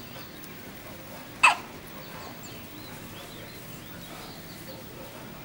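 A two-day-old newborn baby hiccuping once, a single short, sharp hic about a second and a half in.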